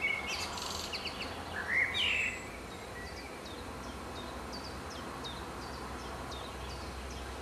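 Small birds chirping: a couple of curved calls in the first two seconds, then a short high chirp repeated about twice a second, over a steady low background rumble.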